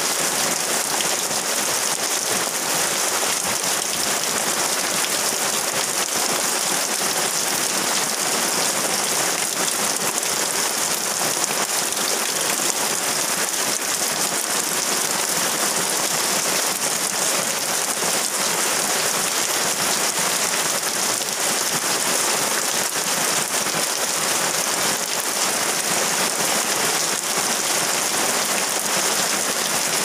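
Water falling onto rocks and spattering, a steady, unchanging splashing hiss.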